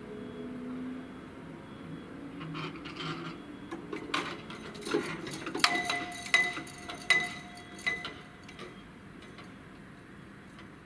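Level-crossing barrier drives raising the booms with a low hum, then clattering and a series of sharp metallic clanks that ring briefly, the four loudest between about six and eight seconds in, as the booms come up to their upright stops.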